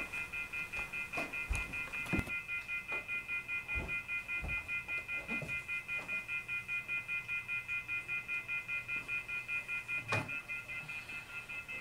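Electronic alarm beeping rapidly and high-pitched, about four or five short beeps a second, fading out near the end. A few soft knocks and a sharper click about ten seconds in sound alongside it.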